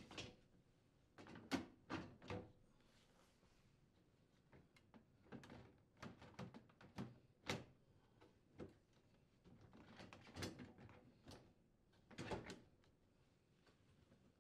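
A plastic refrigerator freezer drawer basket being set onto its drawer frame and metal slide rails. It makes a scattered series of light clicks, knocks and rattles, the loudest knock about a second and a half in.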